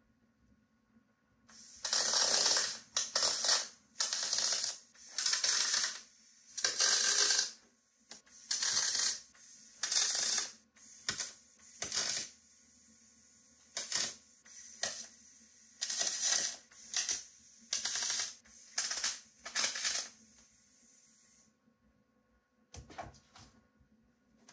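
MIG spool gun tack-welding 16-gauge aluminium sheet: about fifteen short, crackling, hissing bursts of arc, each a fraction of a second to a second long, with a faint steady hiss between them. The bursts stop a few seconds before the end, leaving a few faint clicks.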